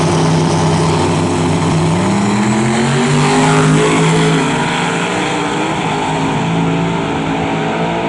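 Two small-tire street drag cars racing side by side: a steady, loud engine note on the line, then the pitch climbs from about two seconds in as they launch and accelerate hard away down the street.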